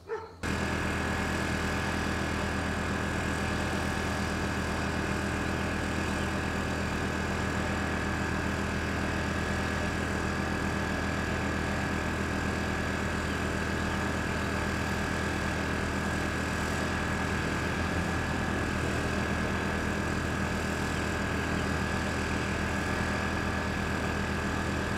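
An engine idling steadily, a constant drone with a regular low pulse, cutting in abruptly about half a second in.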